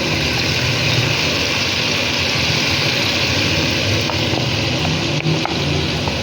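Marinated chicken pieces frying in hot oil: a steady sizzle over a low, constant hum.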